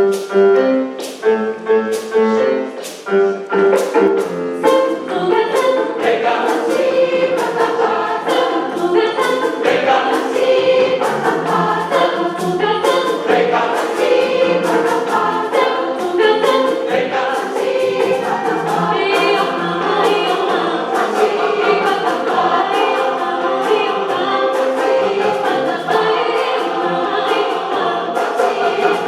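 A large mixed choir singing an African-style song in harmony over a steady beat of African percussion, with many voices together.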